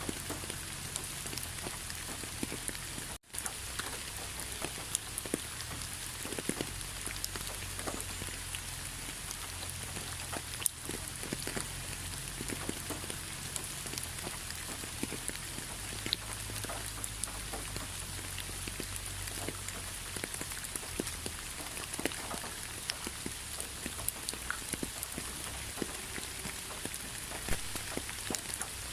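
Steady rainfall, with many separate drops hitting close by over an even hiss and a low rumble underneath. A momentary drop-out in the sound comes about three seconds in.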